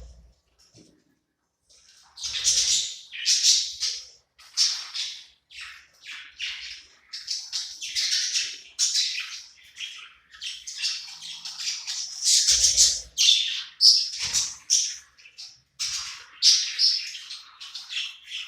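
Budgerigar chattering: a busy, unbroken run of quick high chirps and squawky warbles, starting about two seconds in.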